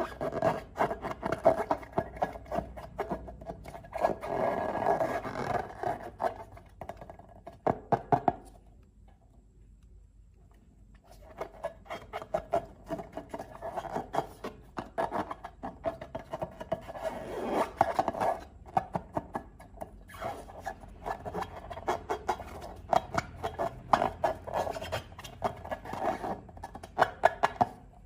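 Slime being squished and worked by hand, a dense run of sticky crackles and clicks that stops for a couple of seconds about a third of the way in and then resumes.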